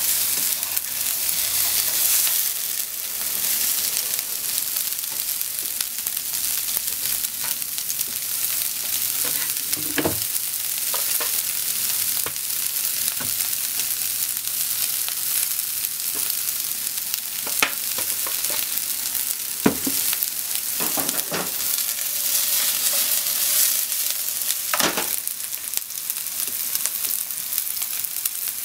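Sliced onions sizzling steadily as they fry in a non-stick frying pan, stirred with a wooden spatula, with a handful of sharp knocks scattered through it.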